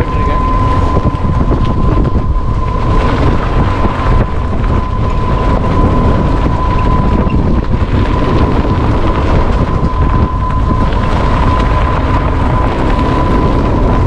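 Open-sided cart driving along a road: steady wind buffeting on the microphone over the rumble of the ride, with a thin, steady high whine throughout.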